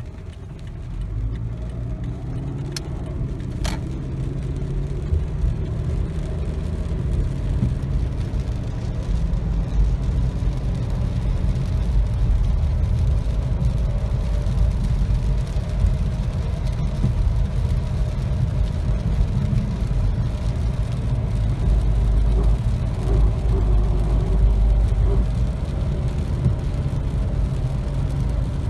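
2008 Toyota RAV4 with the 2.4 L 2AZ-FE four-cylinder, 4WD and four-speed automatic, driving at cruising speed: a steady low rumble with a grinding drone, the noise that has troubled it for a couple of months and whose cause is unknown. Two faint clicks come about three and four seconds in.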